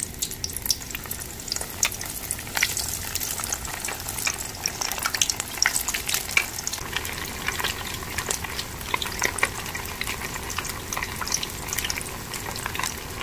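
Food sizzling on the stove: a steady crackle of many small pops.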